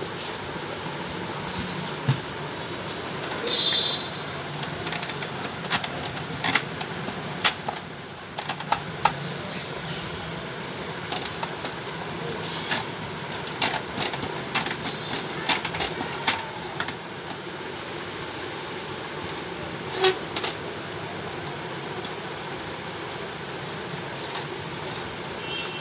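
Irregular clicks and taps of plastic printer parts being handled and fitted by hand in an Epson L130 inkjet printer's paper-feed assembly, over a steady background hiss.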